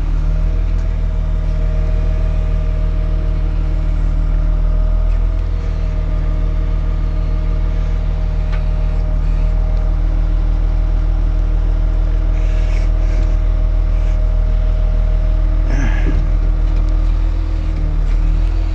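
A crane's heavy diesel engine running steadily at constant speed, a deep drone with a faint whine above it. A few brief metal clanks and scrapes come in the second half.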